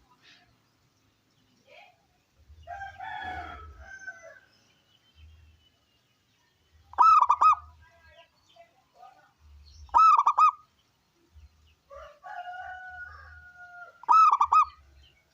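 Zebra dove (perkutut) cooing: three loud, quick rolling coo phrases about three seconds apart, the strong song of a male in full voice, with softer, longer bird calls between them.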